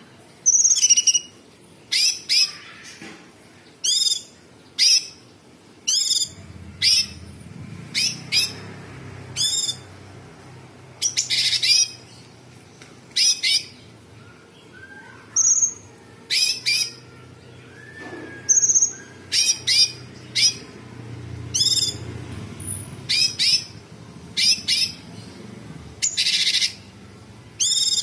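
Caged blue-winged leafbird (cucak cungkok) singing: loud, short, sharp high-pitched phrases, roughly one a second. A faint low hum comes in underneath about six seconds in.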